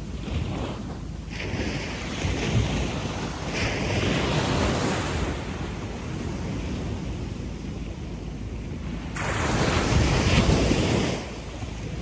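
Gentle sea waves washing up and back on a sandy beach, the surf hiss swelling and ebbing; the loudest wash comes about three-quarters of the way in and cuts off abruptly. A steady low rumble runs beneath.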